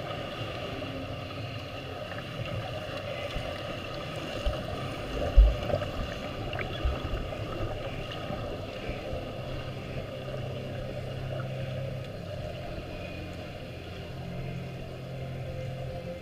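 Muffled underwater sound of a swimming pool heard by a submerged camera: a steady hum and water noise, with a few dull thumps around five to seven seconds in, the loudest a little after five seconds.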